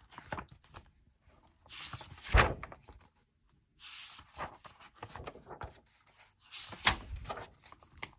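Pages of a paperback picture book being turned and pressed flat by hand: paper rustling twice, each time with a sharp thump, about two seconds in and again near seven seconds in.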